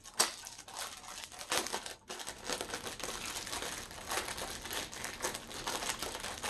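Clear plastic packaging crinkling as a small item is handled and unwrapped, in dense, irregular crackles with a brief pause about two seconds in.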